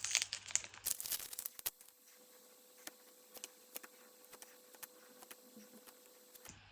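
A foil Pokémon booster pack wrapper being torn open and crinkled, then a run of soft separate ticks as the cards inside are handled one by one.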